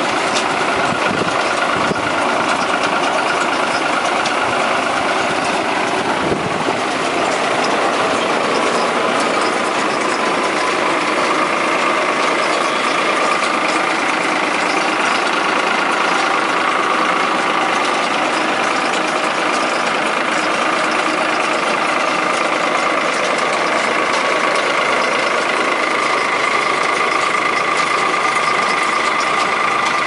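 Tractor engine and a Kartar straw baler running steadily together while working through paddy straw, a continuous mechanical din with a constant high hum.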